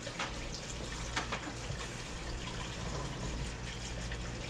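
Steady rushing noise with a few faint clicks in the first second and a half.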